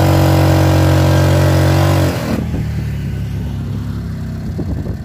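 Motorcycle engine held loud at steady high revs, then dropping back about two seconds in to a quieter, lower running.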